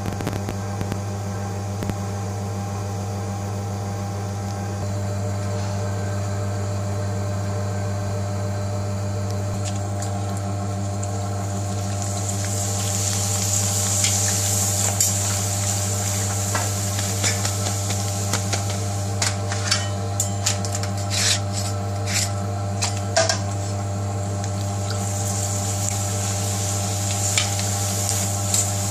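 Poppadoms frying in hot oil in an iron karahi: the oil starts sizzling about twelve seconds in, and a slotted metal spatula clicks against the pan several times in the middle stretch. A steady low hum runs underneath throughout.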